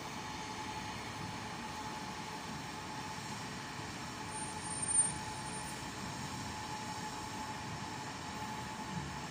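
Street traffic on a wet road: buses and cars moving through a junction under a steady background hum, with a brief high squeal about halfway through.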